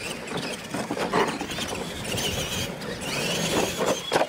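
Radio-controlled monster trucks racing on a dirt track, motors and gears giving a wavering high whine, with a sharp thump near the end as a truck lands off a ramp.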